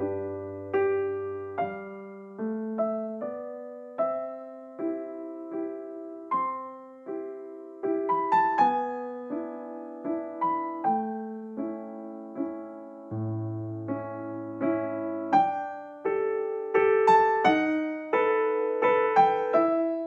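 Background music: a slow piano piece of single struck notes and chords over low bass notes, each note fading after it is played. It gets busier and louder toward the end.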